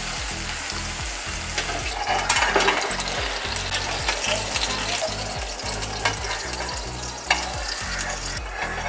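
Egg, paneer and tomato dosa batter sizzling steadily in coconut oil in a non-stick frying pan. A spatula scrapes under the dosa, loudest about two seconds in, with a sharp click near the end.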